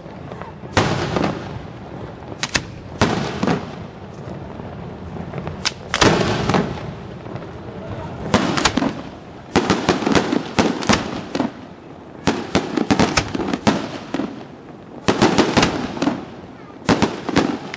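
Aerial firework shells bursting in an irregular run of sharp bangs, each followed by a rolling echo. The bangs come singly at first, then in quick clusters from about halfway through.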